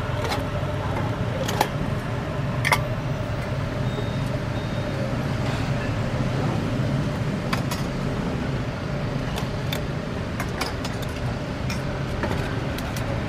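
Steel ladle, mesh strainer and small steel bowls clinking against a large steel stock pot in sharp, scattered knocks, the loudest near the start. Under them runs a steady low rumble.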